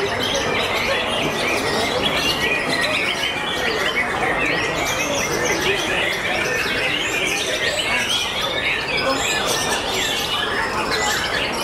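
White-rumped shamas singing in their cages, several at once: a dense, unbroken tangle of fast chirps, whistles and trills.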